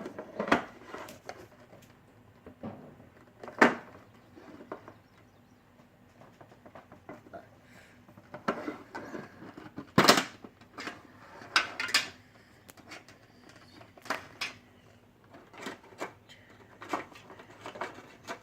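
A metal Pokémon card tin being opened and its contents handled: scattered clicks, knocks and rustles, the loudest about three and a half seconds in and again about ten seconds in.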